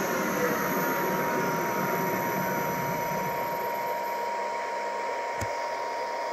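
Three-phase lathe spindle motor and drive winding down as its VFD ramps the frequency toward zero: a falling whine over a steady high tone and a hiss. A single click about five seconds in.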